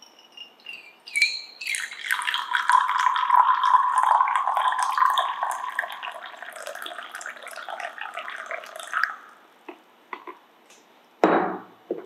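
Liquid poured from a glass pitcher into a small glass cup: a few drips at first, then a steady stream for about seven seconds that stops and trails off into drips. Near the end comes one short knock, as of the glass pitcher set down on the wooden table.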